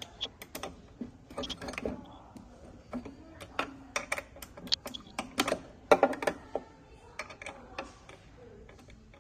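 Irregular metal clicks and clinks of an M5 hex key being fitted and worked on thread-locked screws inside a padel ball machine, bunched most thickly in the middle.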